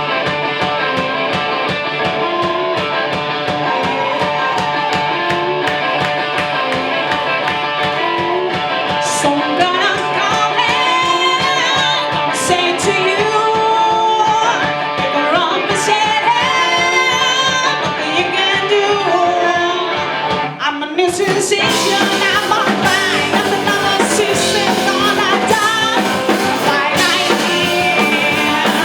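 Rock band playing a blues-rock song: electric guitar over a steady drum beat. After a short break about two-thirds of the way through, the whole band comes back in fuller.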